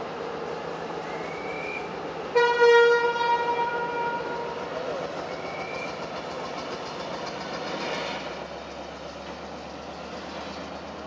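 Train horn, one short blast about two seconds in that fades out, over the steady running noise of passenger coaches rolling along the track.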